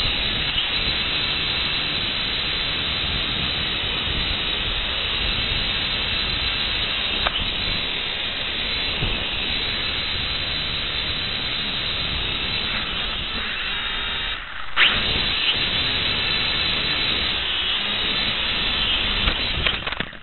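Steady loud hiss on an FPV drone's recorded audio, with no clear motor tone. It dips briefly about fourteen seconds in and comes back with a sharp crack.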